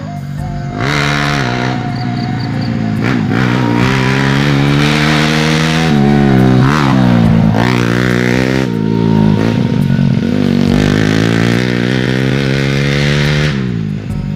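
Honda Grand motorcycle engine in 125 cc spec, a small single-cylinder four-stroke, revving hard as the bike rides off along a dirt track. Its pitch climbs and drops several times, with a sharp dip about seven seconds in.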